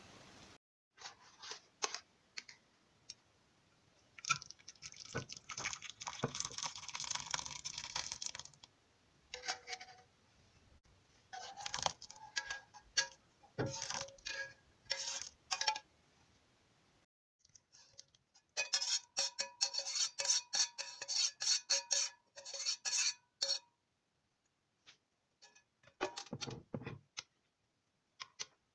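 Metal spoon tapping and scraping against cookware, a cooking pot and a glass baking dish, in several bursts of quick clinks with a ringing note, separated by short pauses.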